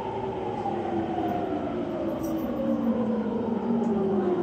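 E231 series 800-subseries electric train, heard from inside the car: the inverter and traction motor whine falls in pitch through several tones as the train brakes into a station, over running and rail noise.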